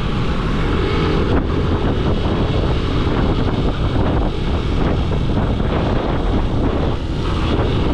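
Steady noise of a moving road vehicle, engine and road noise together, with wind buffeting the microphone.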